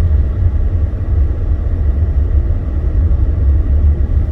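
Steady low rumble of a Jeep driving on snowy roads, heard from inside the cabin.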